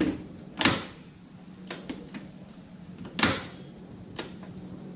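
A retractable passenger foot peg on a Honda Dio scooter being pushed and folded by hand: about six sharp plastic-and-metal clacks, the loudest about a second in and about three seconds in, over a faint steady hum.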